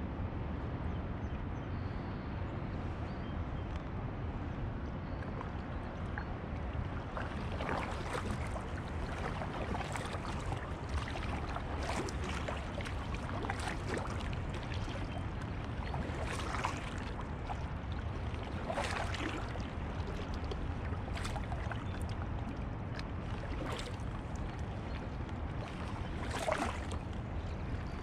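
Kayak paddle strokes, the paddle blades dipping into the lake with a short splash about every two seconds. The strokes begin about a quarter of the way in, over a steady low rumble.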